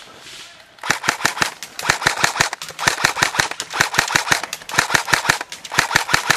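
Airsoft gun firing fully automatic, in about six short bursts of rapid snapping shots, roughly a dozen shots a second.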